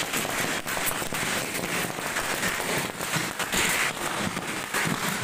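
Firecrackers going off on the road, a dense run of rapid pops and crackling that goes on without a break.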